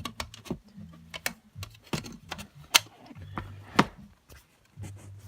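Irregular light clicks and taps, with a few sharper knocks, from objects and cage parts being handled.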